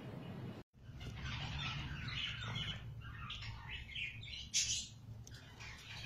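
Parakeet chicks in a nest box making raspy, scratchy begging calls in quick runs, with one louder, sharper squawk about halfway through.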